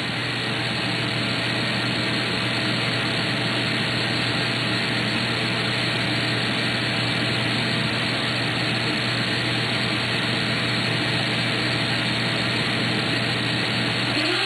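Vacuum cleaner running steadily, its motor whirring as a constant rushing noise over a low hum.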